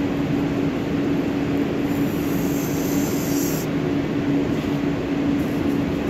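Steady machinery drone with a constant low hum running through it. A faint high hiss comes in about two seconds in and stops about a second and a half later.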